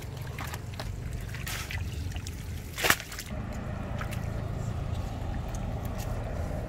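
Hands working in shallow muddy water: small squelches and trickles as the mud is felt through for fish, with one sharp smack about three seconds in, over a steady low rumble.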